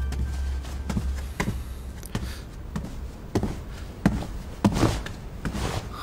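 Footsteps: about eight separate steps or soft taps at an unhurried, uneven pace, as the background music fades out at the start.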